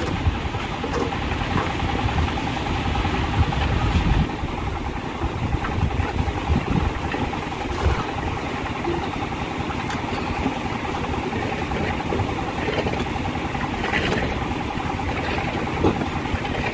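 Concrete mixer's engine running steadily, with a few short knocks of work going on around it.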